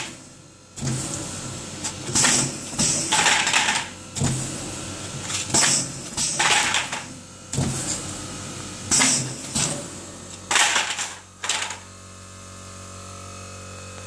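Horticultural tray destacker separating black plastic plant trays from a stack onto a conveyor: a run of short, noisy clattering bursts a second or so apart, often in quick pairs, as each tray is released. Near the end the bursts stop and only the machine's steady hum is left.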